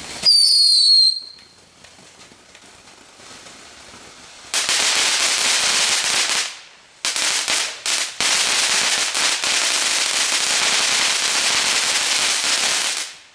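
Consumer fireworks: first a loud, high whistle falling in pitch for about a second, then a firework fountain hissing steadily as it sprays. The hiss starts about four and a half seconds in, breaks off briefly around seven seconds, and cuts off near the end.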